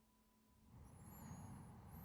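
A slow, long breath close to the microphone, swelling from about half a second in, with faint thin high whistling glides over it.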